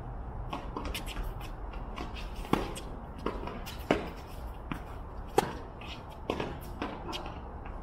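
Shoes shuffling and scuffing on a tennis court, with sharp tennis-ball impacts from bounces or racket hits. The three loudest come about a second and a half apart, midway through.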